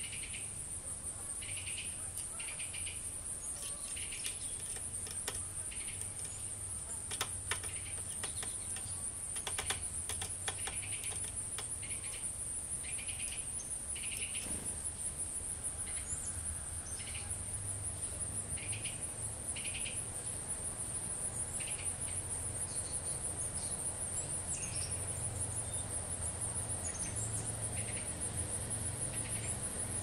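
Crickets trilling steadily and high-pitched, with short chirps repeating every second or so and a few sharp clicks about a third of the way in.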